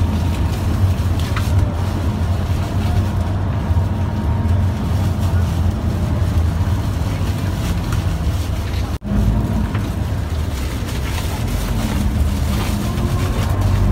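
Coach bus engine running, a steady low rumble heard from inside the passenger cabin, with faint murmur of voices near the end and a brief cut about nine seconds in.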